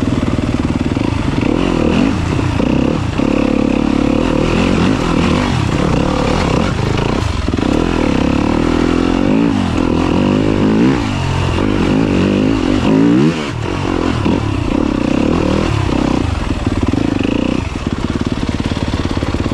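Yamaha YZ250FX dirt bike's single-cylinder four-stroke engine, heard from the rider's seat, revving up and down again and again as the throttle is worked on a trail, with several quick rising revs in the middle.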